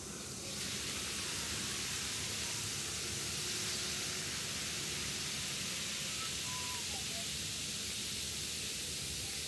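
Baking soda and citric acid fizzing in a glass flask: a steady hiss of countless small bubbles bursting as the foam overflows, getting a little louder about half a second in.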